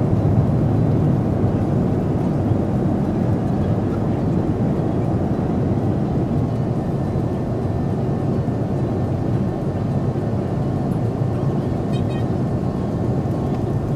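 Jet airliner cabin noise heard from a window seat: a steady, deep rush of engines and airflow, with a few faint ticks near the end.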